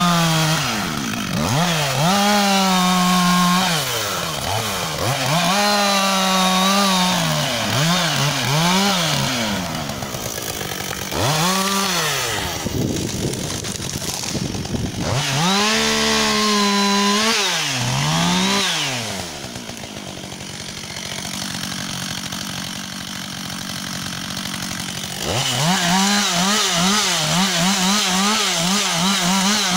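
Husqvarna 562 XP two-stroke chainsaw cutting wood, its engine revving up to full throttle and dropping back again and again. Past the middle it runs quieter and steadier for several seconds, then goes back to full throttle with a wavering pitch near the end.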